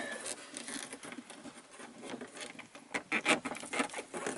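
Fingers, gripping with a scrap of fine sandpaper, rubbing and clicking against a stuck bulb and the plastic overhead map-light socket of a Ram pickup as the bulb is wiggled loose. There is a quick run of sharper clicks about three seconds in.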